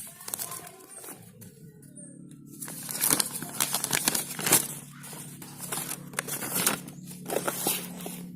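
Packaging rustling and crinkling as a horn kit's contents are handled and unpacked, busiest and loudest from about three seconds in, over a steady low hum.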